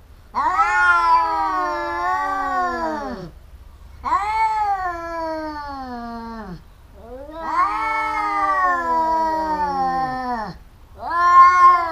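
Domestic cats in a face-off caterwauling: four long, wavering yowls in a row, each two to three seconds long, rising at the start and sagging in pitch as it ends. It is a threat display between two cats squaring up to fight.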